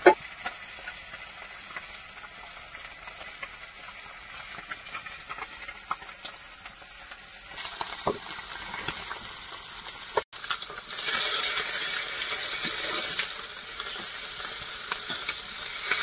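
Small river fish sizzling as they shallow-fry in oil in an iron kadai, with a few light clicks of a metal spatula. The sizzle is faint at first and gets clearly louder about halfway through.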